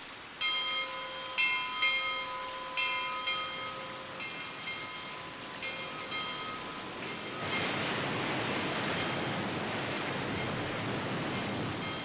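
A tower bell tolling in a series of strokes, each note ringing on, over falling rain. A little past halfway the rain turns heavy and loud, and the bell carries on faintly beneath it.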